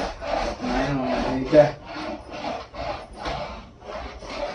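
Handheld dust-collecting bed-cleaning brush scrubbed back and forth over a cotton bedsheet, making rhythmic rubbing strokes, about three a second. The strokes grow fainter in the second half.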